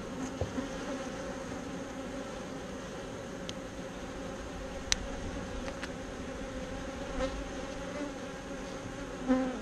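Honeybees buzzing around an opened hive, a steady drone. A single sharp click sounds about five seconds in.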